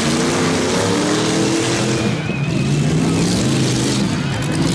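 Demolition derby cars' engines revving and running in the arena; one engine's pitch climbs over the first two seconds or so, then holds steady.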